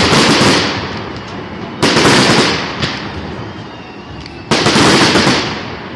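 Fireworks shells bursting: two sudden loud bangs about two and a half seconds apart, each trailing off into a rumble over a second or two.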